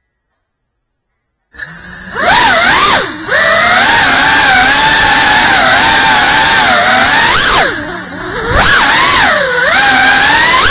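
Near silence for about a second and a half, then the brushless motors and ducted propellers of a GEPRC Cinelog 35 cinewhoop drone spin up into a loud whine. The pitch rises and falls with the throttle, with a few brief dips as the pilot backs off. It is heard through the small onboard camera's microphone.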